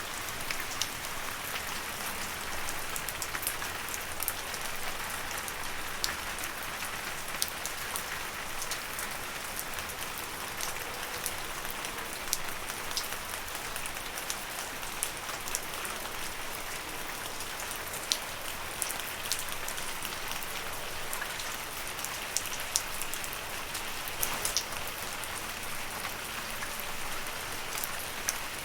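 Steady rain falling on leaves: an even hiss with scattered sharper drops striking nearby.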